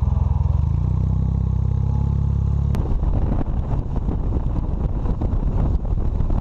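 Honda Hondamatic motorcycle engine running steadily, rising slightly in pitch before the first second. About three seconds in, the sound switches abruptly to the bike under way on the road, with rough wind noise buffeting the microphone over the engine.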